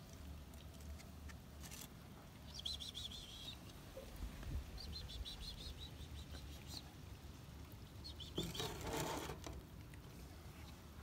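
Small birds chirping in quick series three times, over a low steady rumble, with a short rush of noise about eight seconds in.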